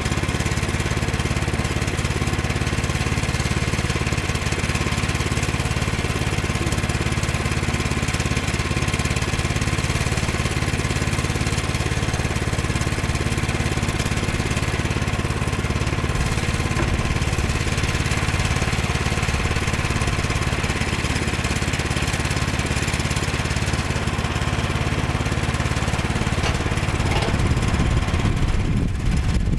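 Small gasoline engine of a Woodland Mills HM122 portable sawmill running steadily at a constant speed.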